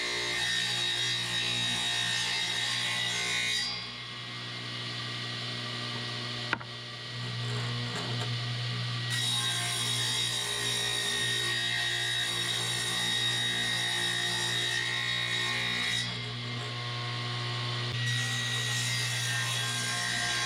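Electric power saw running and cutting wood boards: a steady motor hum with the hiss of the blade in the wood, which eases off twice, about four seconds in and again near sixteen seconds, and a single sharp click about six and a half seconds in.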